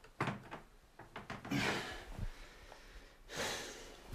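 Light knocks and two short rustling swells in a small room, with a sharp knock near the end.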